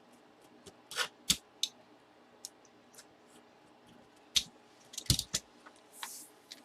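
Plastic wrapping being cut and pulled off a bat tube: irregular sharp clicks, cracks and crinkles, with a short hiss of tearing wrap near the end.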